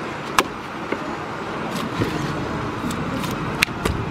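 A few sharp knocks of a large chopping knife striking a tuna on a log chopping block, the loudest about half a second in and two more close together near the end, over a steady din of outdoor street noise.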